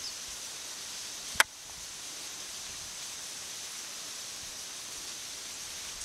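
Steady outdoor ambience with a constant high-pitched hum in the background, broken once by a single sharp click about a second and a half in.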